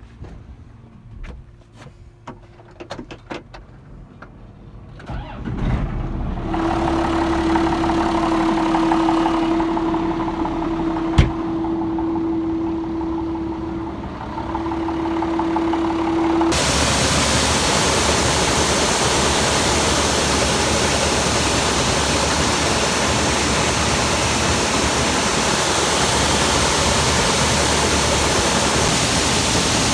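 Grain-handling equipment starting up: after a few light clicks, an engine starts about five seconds in and runs with a steady whine. About sixteen seconds in, a loud, steady rushing noise takes over as the augers and rotary screener run with soybeans flowing through them.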